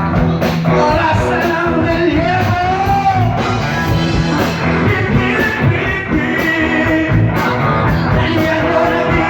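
A band jamming rock-and-roll music, with a singer's voice over a steady drum beat.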